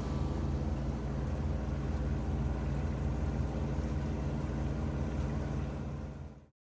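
Boat engine running steadily, then fading and cutting off about six and a half seconds in.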